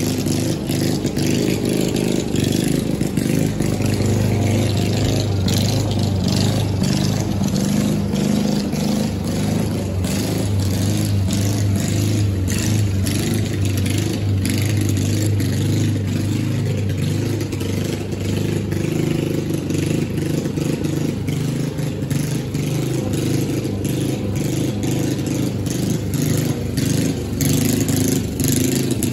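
Walk-behind gas lawn mower engine running steadily while cutting grass, with frequent short ticks over the top.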